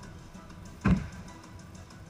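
Background music, with a single loud smack of a volleyball about a second in, echoing through the sports hall.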